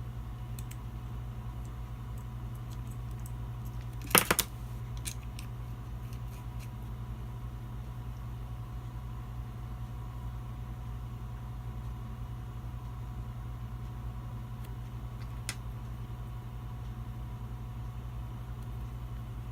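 Small metal gun parts and tools being handled: a sharp double click about four seconds in, a few light ticks after it and another later on, over a steady low hum.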